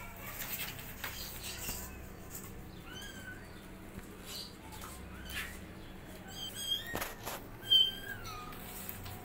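Young kittens mewing: short, high-pitched calls, several in a row. They come thicker toward the end, and the loudest is about eight seconds in.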